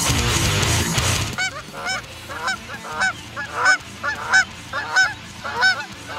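Rock music with distorted guitar breaks off about a second in. It is followed by a run of about a dozen short honks, each rising and falling in pitch, some coming in quick pairs.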